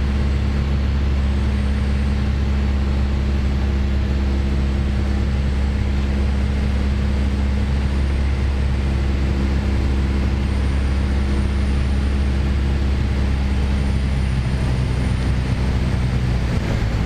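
Steady drone of a Piper PA28-161 Warrior's four-cylinder Lycoming engine and propeller, heard inside the cabin in flight on final approach. Its note shifts slightly near the end.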